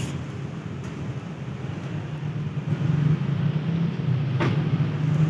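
Toyota Vios Gen 2 (Limo) 1.5-litre 1NZ-FE four-cylinder engine idling with a steady low hum, with a single click about four and a half seconds in.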